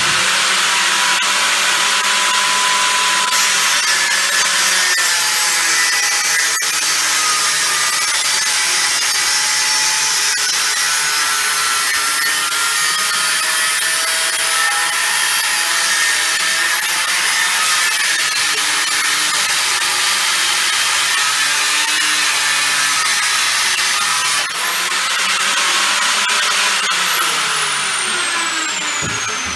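Abrasive cut-off saw grinding through rectangular steel tube, its motor running with a steady high whine under the grinding. Near the end the saw is switched off and the motor winds down, the whine falling in pitch.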